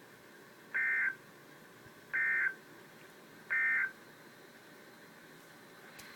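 Emergency Alert System end-of-message code: three short bursts of warbling two-tone digital data, each about a third of a second long and about a second and a half apart. They signal the end of the alert broadcast.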